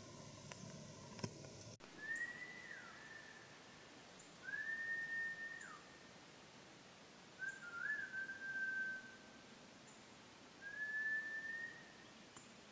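Four long, clear whistled notes a few seconds apart, each holding one pitch, some ending in a quick downward slide.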